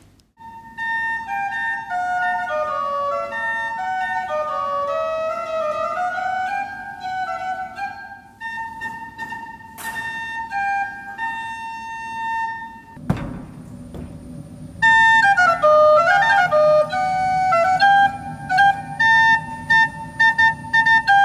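Pipe organ playing on flute-like stops: a high note held throughout, with running melodic lines moving above and below it. It grows louder near the end, after a brief burst of noise about two-thirds through.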